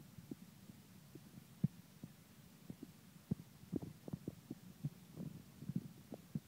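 Faint handling noise: soft, irregular low knocks and rubs of fingers gripping and turning a small handheld device.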